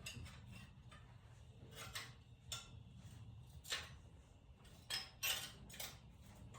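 Scattered light metallic clicks and clinks of a socket and hand tools against metal while a spark plug is being worked into its hole, about half a dozen separate taps, the loudest near the end.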